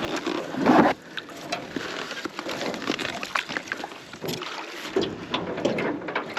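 Paddling a small boat: water sloshing and splashing with scattered light knocks on the hull, after a louder rush of noise in the first second.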